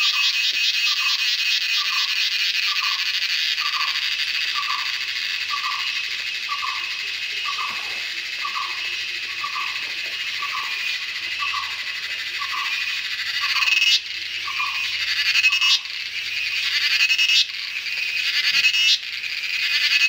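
Cicadas singing: a loud, dense, pulsing high-pitched buzz. In the second half it breaks into phrases that swell for a second or so and cut off abruptly, about every one and a half seconds. Through the first two-thirds a separate lower note repeats about every two-thirds of a second.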